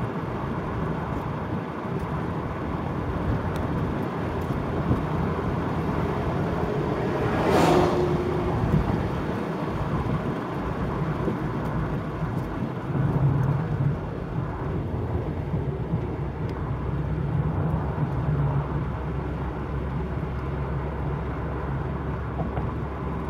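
Wind and road noise in the open cabin of a Peugeot 307 CC convertible driving at speed with the roof down, with the car's engine running underneath. A brief louder rush of noise comes about seven and a half seconds in, and the engine hum grows a little stronger about thirteen seconds in.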